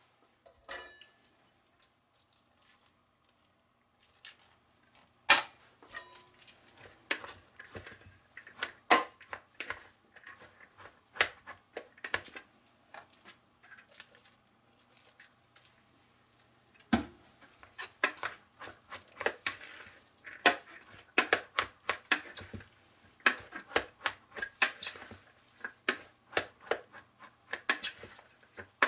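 Plastic rice paddle tapping, clicking and scraping against the side of a clear mixing bowl while cutting sushi vinegar into cooked rice. The taps are irregular and start about five seconds in, growing busier in the second half.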